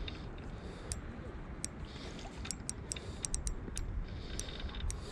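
Handling noise of a fishing rod and reel while a fish is played: a steady low rumble, with a quick run of sharp, irregular ticks about halfway through.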